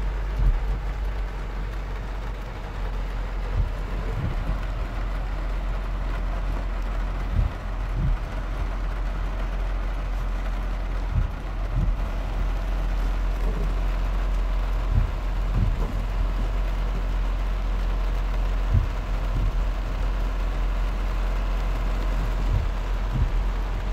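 Steady hiss of heavy rain on the car and floodwater flowing across the road, heard from inside the car, with a constant low hum underneath and a few soft low thumps scattered through.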